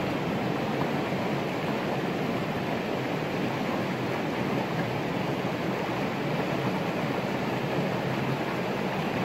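Steady rushing outdoor background noise with no distinct events: an even hiss like running water or wind on the microphone.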